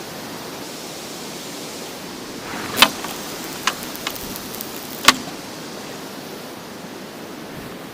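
Strong wind rushing over the microphone, a steady noise, with four sharp clicks or knocks close together near the middle.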